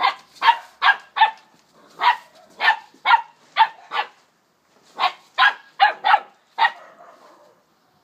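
A Springer Spaniel puppy barking at a moving push broom. The barks are short and high-pitched, coming in three quick runs of four or five, and they stop about seven seconds in.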